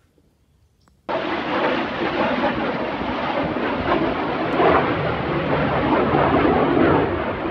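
Jet engine noise from a pair of fighter jets flying overhead: a loud, steady rush that starts abruptly about a second in.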